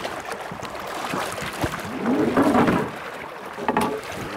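River water splashing and sloshing around a wading guide and a landing net as a large trout is netted beside a drift boat, with uneven splashes and a louder stretch about two seconds in.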